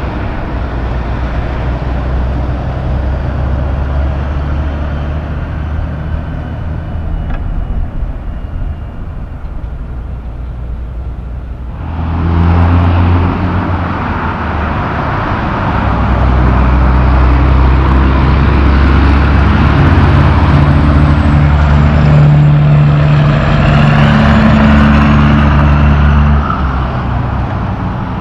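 Diesel engine of a Peterbilt 379 car-carrier tractor-trailer running as the rig drives by on the road, mixed with passing car traffic. A steady low engine hum that gets suddenly louder a little before halfway and stays loud through most of the second half.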